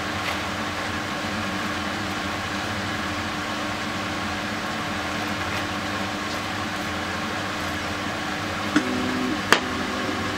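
Steady mechanical hum with a constant low drone. Near the end a second steady droning tone joins for about a second and a half, and there is one sharp click.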